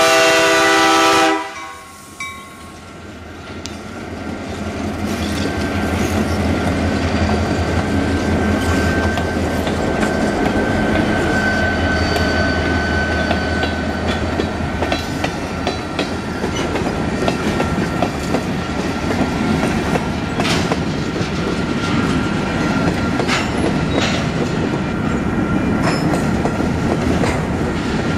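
The lead EMD F-unit's air horn sounds a chord for the grade crossing and cuts off about a second in. The diesel locomotives then rumble past, followed by freight cars rolling by with clickety-clack over the rail joints and a thin wheel squeal.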